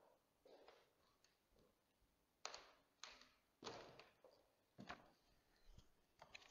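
Faint footsteps and light knocks from a person walking up to a lectern, about five in all over a few seconds, in an otherwise near-silent room.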